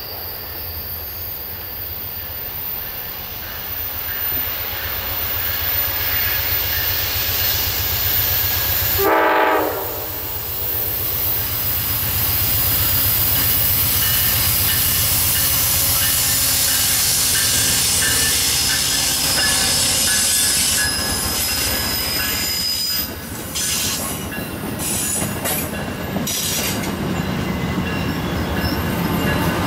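Amtrak GE Genesis P42DC diesel locomotive and its passenger cars approaching and passing on curved track, with a steady low engine rumble and a short horn blast about a third of the way in. In the second half, wheels squeal high-pitched on the curve as the Amfleet cars roll by.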